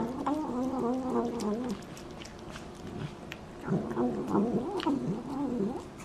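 Domestic cat meowing in two stretches of wavering, drawn-out calls: one at the start and one about four seconds in.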